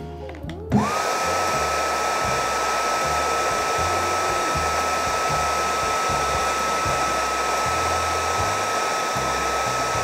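Makita DHG181 cordless heat gun switched on about a second in: its fan spins up with a quick rising whine that settles into a steady high tone over an even rush of blown air.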